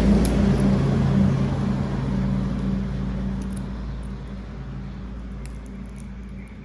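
A steady low engine hum, most likely a passing motor vehicle, loud at first and fading away over several seconds, with a few faint light clicks on top.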